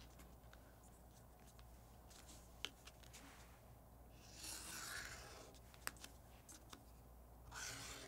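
Faint scratch of a felt-tip marker drawn along a plastic ruler across paper, about four seconds in and again near the end, with a few light ticks of the ruler and marker against the table.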